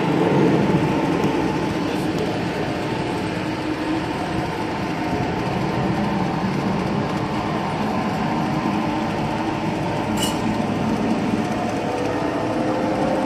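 G-scale garden railway train running: a steady rumble with several humming tones underneath. There is one short click about ten seconds in.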